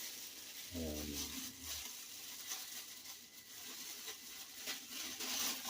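Faint steady hiss of room tone, with a brief low hum lasting about a second, near one second in.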